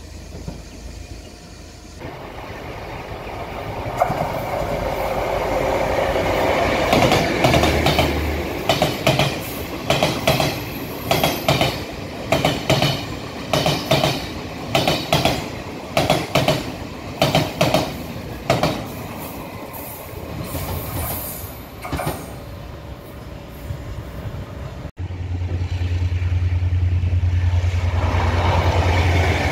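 A Taiwan Railways R-class diesel locomotive hauling DR3000 diesel multiple unit cars passes, its wheels clacking over the rail joints in a quick regular rhythm. Near the end there is a sudden change to a loud, steady, low diesel engine drone.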